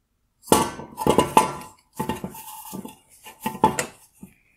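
Hard plastic and metal parts of a halogen headlight's H11 low-beam projector clinking and knocking as it is handled and turned over on a wooden workbench: a string of sharp clicks and knocks, some with a short metallic ring, starting about half a second in.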